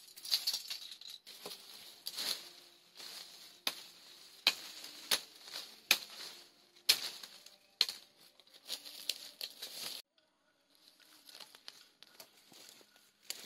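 Irregular sharp clicks and knocks over rustling, broken by a sudden brief drop-out about ten seconds in.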